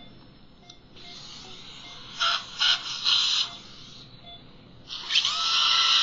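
A Bien-Air Chiro Pro L straight surgical handpiece with a bur, cutting bone to widen the buccal trough beside an impacted lower wisdom tooth. It gives three short bursts of high whine a little after two seconds in. From about five seconds in it runs as a steady high whine, rising briefly in pitch as it comes up to speed.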